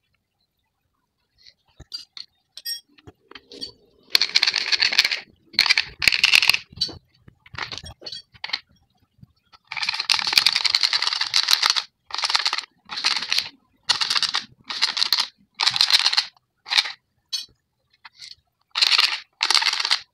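A metal blade scraping along the edge of a black plastic motorcycle headlight visor, shaving off plastic. A few faint scrapes come first, then from about four seconds in a series of a dozen or so strokes, some short and some drawn out for about two seconds.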